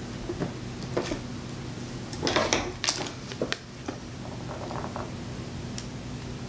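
Light handling noises of a paper card and marker: a few short clicks and rustles, bunched around the middle, over a low steady hum.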